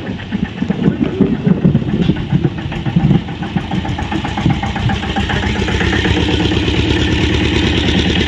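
Tractor engine running, uneven and surging for the first few seconds, then settling to a steady rapid beat.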